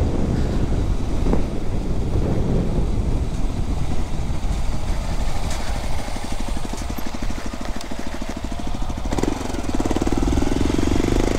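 Motorcycle engine running under way, with wind rumbling on the microphone. About six seconds in the engine settles to a low, even putter, and near the end its note rises.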